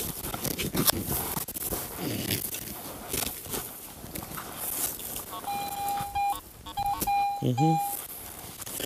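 Crunching steps and rustling in dry grass. Then, from about five and a half seconds in, a Garrett AT Pro metal detector sounds a steady beep tone for about two and a half seconds, broken by a few short gaps as the coil sweeps over a buried target.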